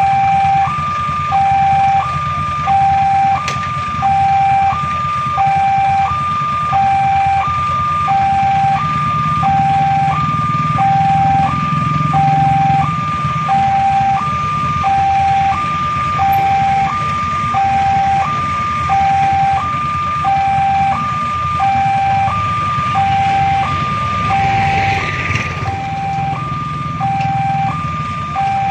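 Railway level-crossing warning alarm: an electronic signal alternating steadily between a higher and a lower tone, about one full cycle every two seconds, sounding while the crossing barriers are down.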